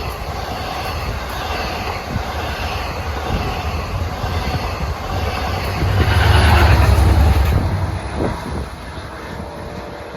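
A long 12-car diesel-hauled Long Island Rail Road passenger train passing close by, its wheels rumbling and rattling over the rails. It is loudest about six to seven and a half seconds in, then fades as it moves away.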